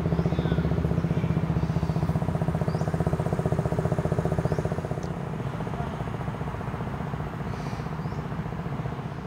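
A small engine running with a fast, even throb and a low hum, loudest for the first five seconds or so and then fading somewhat.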